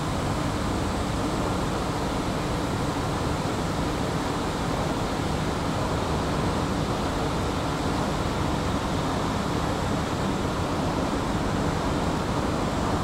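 Escalator running while being ridden upward: a steady, even rumble and hum of the moving steps and drive, with a faint steady tone through it.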